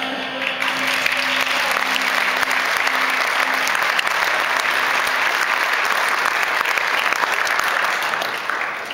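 Audience applauding, starting about half a second in and dying away near the end, over the last held notes of music.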